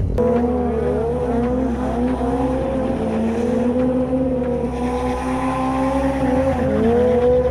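Sport motorcycle engine held at high revs during a burnout as the rear tyre spins in smoke. The engine note wavers but stays steady, dipping briefly and climbing again near the end.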